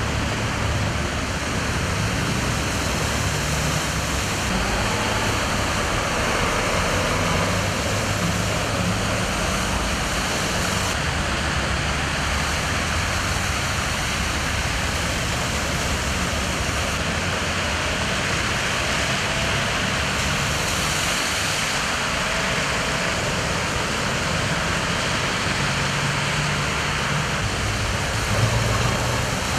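Cars driving through deep floodwater: wheels churning and splashing the water over a steady rush of moving water, with engines running underneath.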